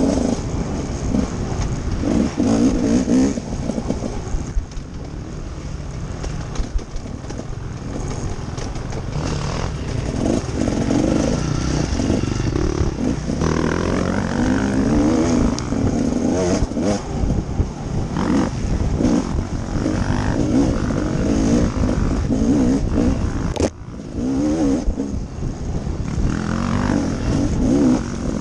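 Off-road dirt bike engine revving up and down as it is ridden hard over a rough trail, heard from a helmet-mounted camera. About three-quarters of the way through there is a sharp knock and the sound drops for a moment.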